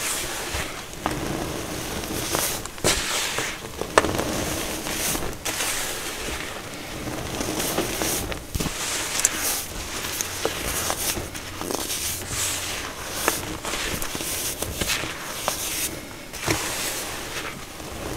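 Hands pressing, rubbing and squeezing loose baking soda mixed with glitter: continuous soft crunching studded with sharp crackles, the sharpest about four seconds in.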